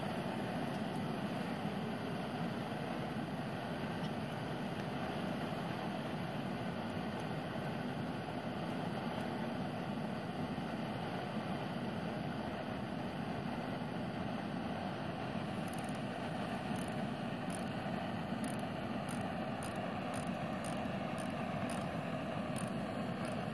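Propane torch burning with a steady rushing flame noise. Faint light ticks come in about two-thirds of the way through.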